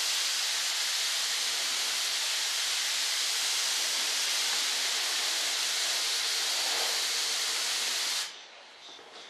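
Compressed-air spray gun spraying in one long steady hiss that cuts off sharply after about eight seconds.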